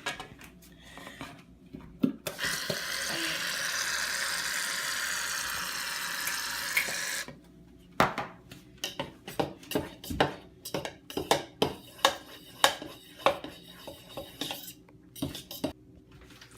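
Aerosol shaving cream hissing out of the can for about five seconds, then a utensil clicking and scraping in the bucket as the glue, lotion and shaving cream are stirred together.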